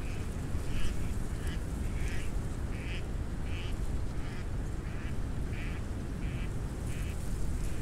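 Storm wind buffeting the microphones as a constant low rumble, with a bird's short call repeated steadily, about three calls every two seconds.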